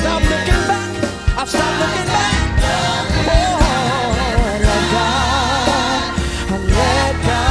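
Live gospel music: voices singing with wide vibrato over keyboard, bass guitar and a steady drum beat.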